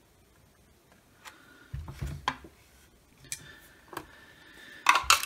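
Red plastic housing of a Milwaukee M12 radio being handled while its charger circuit board is worked loose: scattered plastic clicks and a few dull knocks, with a cluster of sharp clicks near the end, the loudest of all.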